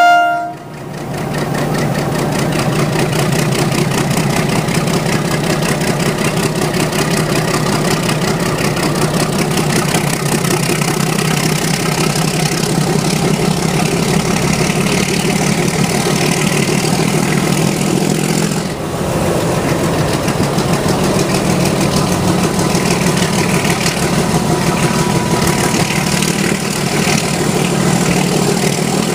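Diesel-electric engine of a YDM4 locomotive running steadily under way, with the mechanical rattle of the moving train. At the very start, a horn blast cuts off. The sound dips briefly about two-thirds of the way through.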